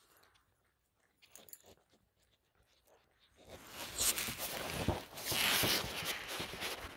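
A Maine Coon cat chewing cooked chicken close to the microphone, with faint bites and clicks at first. From about three and a half seconds in, a loud rustling scrape takes over as the cat's fur brushes against the phone.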